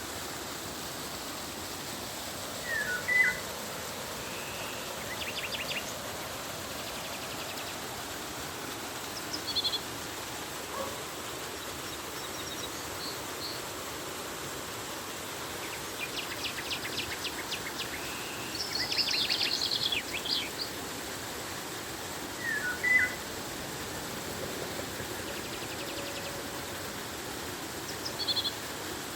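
Birds calling over the steady rush of flowing river water. A short, loud call comes near the start and again about twenty seconds later, with rapid trilling in the second half and a few brief single notes in between.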